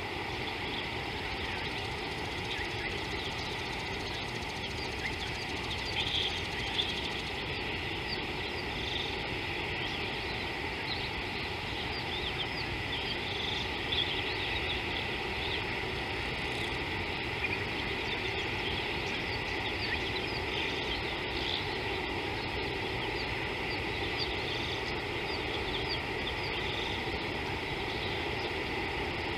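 Steady bush ambience: a dense chorus of small chirping calls from insects and birds over a low background hiss.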